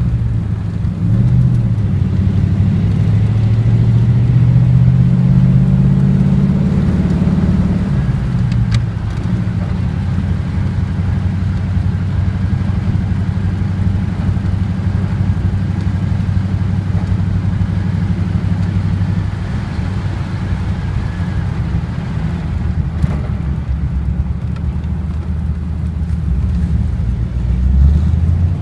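Antique car driving: its engine's pitch rises over the first several seconds as it picks up speed, then it runs steadily at cruising speed.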